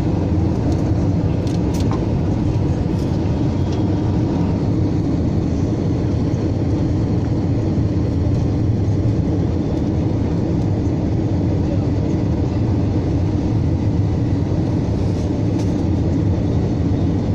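Airliner cabin noise on final approach: the jet engines and rushing air make a steady low rumble, heard inside the cabin from a window seat over the wing.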